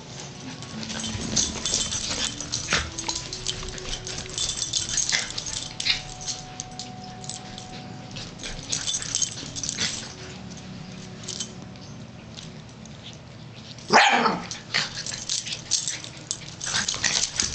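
A dachshund and a shaggy-coated dog play-fighting: short barks and yips over scuffling. One loud yelp comes near the end.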